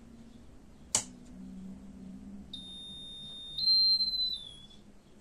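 A sharp click as the power is switched on, then a high-pitched electronic tone for about two seconds from the powered-up PC power supply test setup. The tone jumps higher and louder partway through, then slides down before it cuts off.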